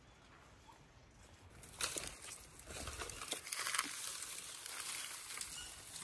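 Dry leaves and grass rustling and crunching underfoot. It is irregular and scratchy and starts about two seconds in after a faint start.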